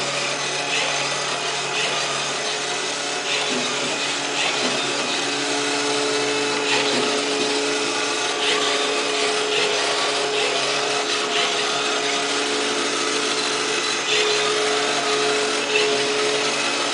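Hummingbird-I robot floor cleaner running: a steady motor hum and whir with several held tones, broken by irregular short clicks every second or two.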